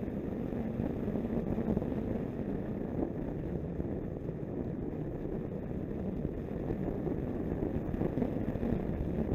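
Snowmobile running steadily at trail speed, a continuous engine and track drone with wind buffeting the microphone.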